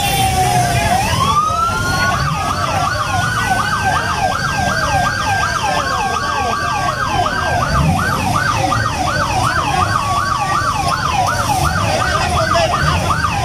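Police sirens: one tone falls in pitch, then rises and switches to a fast yelp of about two and a half sweeps a second, with a slower wailing tone under it. A crowd's noise runs beneath.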